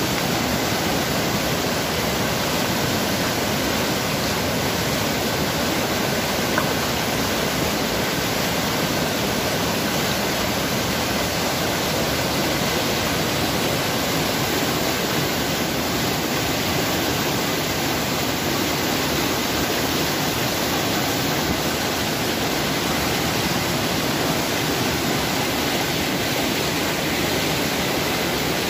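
A small river in flash flood, its muddy water running fast and churning over rocks: a steady, unbroken rush of water.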